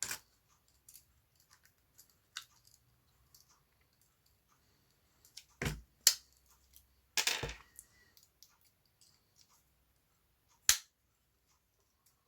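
Scattered sharp clicks and taps of small plastic Swiss Army knife parts, such as a toothpick or tweezers, being handled and fitted into the knife, with a brief rustle about seven seconds in.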